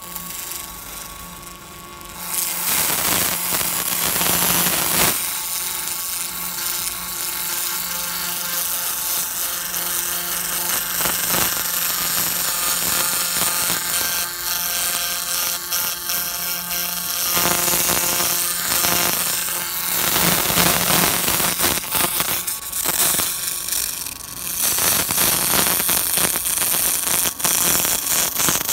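Pulsed restoration laser (EL.EN Blaster) ablating black crust from carved stone: a dense, rapid crackle of pulses snapping on the surface, over a steady low hum. The crackling starts about two seconds in and carries on with brief dips.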